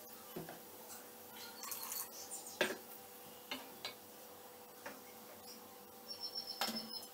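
Wooden spatula stirring sambar in a steel kadai, knocking and scraping against the pan in scattered light clicks, with a cluster near the start and another near the end.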